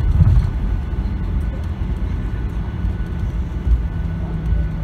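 Cabin noise of a Boeing 737-800 taxiing: a steady low rumble from its CFM56 engines at idle and the airframe rolling along the taxiway, with a faint steady hum joining near the end.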